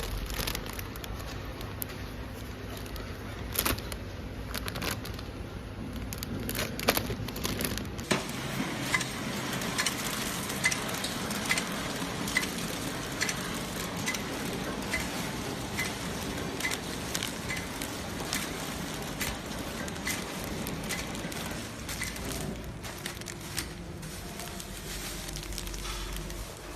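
Automatic pillow-type three-side-seal bread packaging machine running with a steady mechanical hiss. Irregular knocks come in the first part, then a regular click about one and a half times a second as it cycles through its packs.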